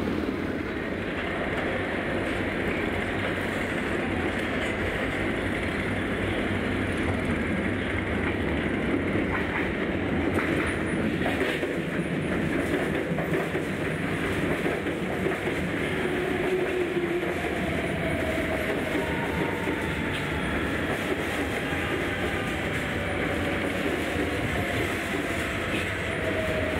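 Shanghai Metro Line 2 train running along the elevated track beside the platform: a steady rumble of wheels on rail, with a faint whine that glides in pitch over the last ten seconds or so.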